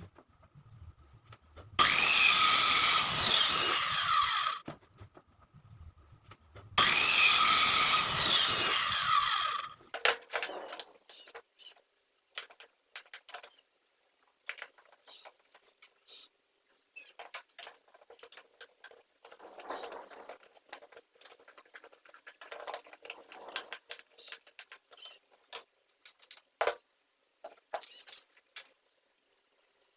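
An electric power tool runs twice, each time for about two and a half seconds, followed by a long stretch of scattered light clicks and knocks from parts being handled.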